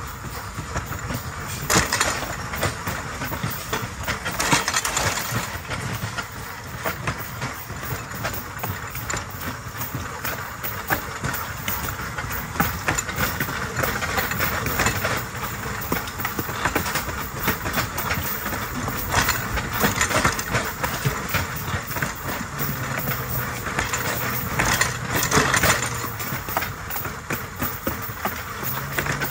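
Steel wheels of a rail bike rolling over old, lightly maintained track: a steady clatter and rattle with many sharp clicks and a few louder bursts every several seconds.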